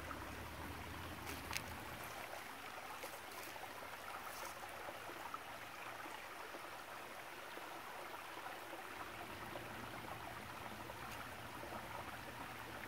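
Steady low rush of a shallow creek running over rocks, with a few faint ticks in the first few seconds.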